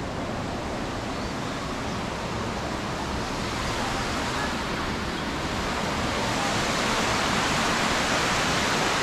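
Steady rushing noise that grows louder and brighter over the middle of the stretch, then holds.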